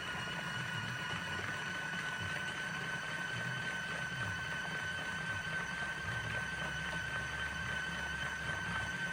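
Collapsible mini washing machine running its wash cycle with the lid closed: a steady motor whine over a low rumble.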